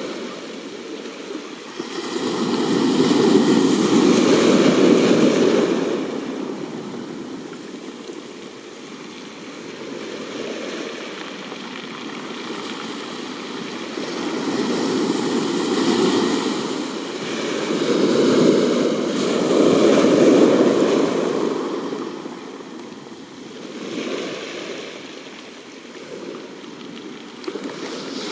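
Sea surf washing against a rocky coast, swelling and ebbing in slow surges every several seconds, with two louder waves.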